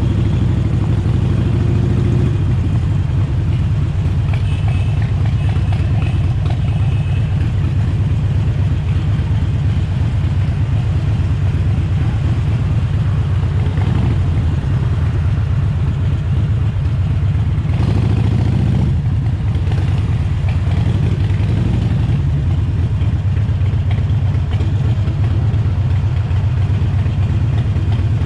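Harley-Davidson Sportster Forty-Eight's 1200 cc air-cooled V-twin running steadily with a deep, even exhaust note. The note shifts slightly about two seconds in and again about two-thirds of the way through.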